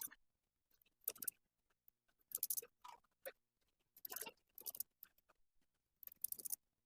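A small screwdriver working the tiny screws of a smartphone's middle cover, making short, irregular clicks and scrapes, about seven of them spread across a few seconds.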